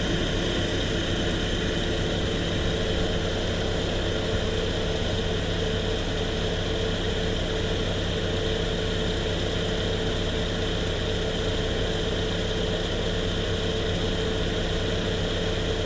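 1997 Saturn SL2's four-cylinder engine idling with the air conditioning running: a steady, even hum with a few held tones, unchanged throughout, as refrigerant is charged into the AC system.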